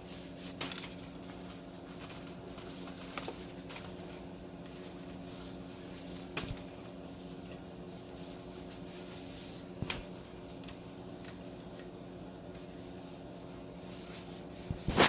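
A wiring harness cable being handled: a few scattered sharp clicks and knocks, the loudest near the end, over a steady low hum.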